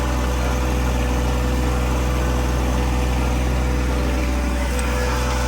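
Engine of the four-wheel-drive tractor pulling the seeder and crimper, running steadily at a constant speed.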